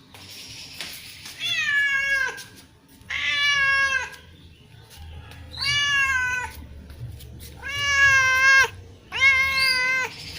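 Domestic cat meowing five times in a row, each meow just under a second long and dropping in pitch at the end.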